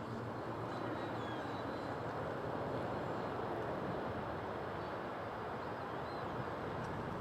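Radio-controlled Funtana model airplane flying overhead, its engine heard as a steady distant drone through a steady rush of gusty outdoor wind.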